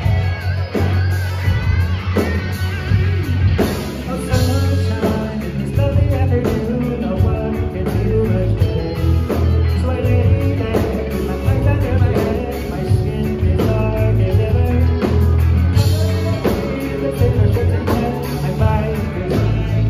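Live band playing amplified through a PA: electric guitars, bass and drums with a steady beat, and a singer.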